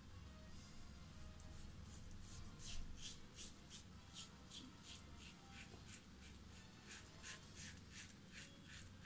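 Mühle R89 double-edge safety razor with a Personna Platinum blade scraping through lathered stubble in short, quick strokes, about three a second, starting about a second in.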